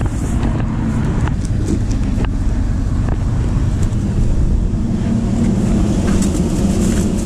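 Vehicle engine idling steadily, a low hum with a few light knocks over it.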